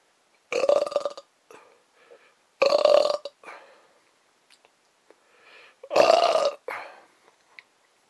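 Three loud burps, each well under a second long, two to three seconds apart.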